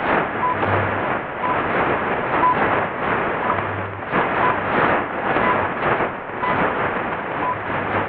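Shortwave radio tuned to 10 MHz, playing the WWVH time-signal station through heavy static that swells and fades. Faint short tone pips come about once a second, with brief low hum bursts from the station's time code.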